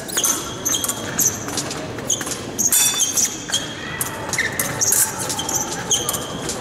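Fencers' shoes squeaking repeatedly on the piste during footwork in an épée bout.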